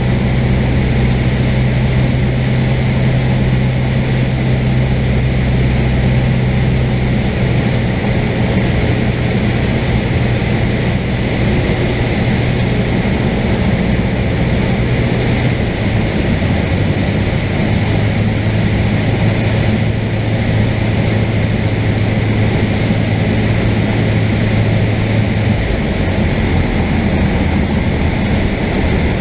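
Cessna 172's piston engine and propeller droning steadily, heard from inside the cabin. The engine note steps down in pitch three times as power is brought back for landing.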